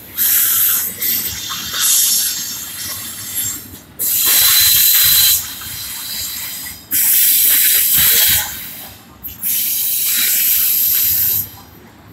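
Double-stack container freight train rolling past: a loud hissing rush of wheels on rail that comes in about five surges of a second or so, dropping away briefly between them.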